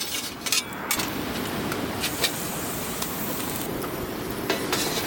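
Strong, gusty wind rushing steadily, with a few scattered sharp clicks and knocks.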